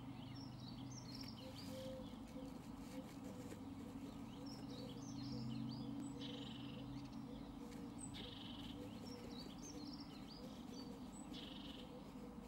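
Songbirds singing: short, high warbling phrases every few seconds, with buzzy notes about a second long in between, over a steady low hum.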